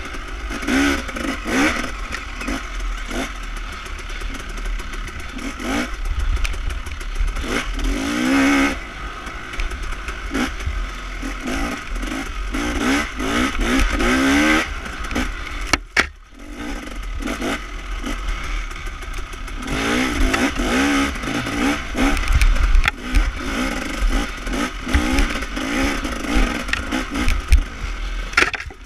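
Off-road dirt-bike engine heard up close from the bike, revving up and down as the throttle is worked over rough trail, with clatter and scraping. The engine sound drops out briefly about halfway through.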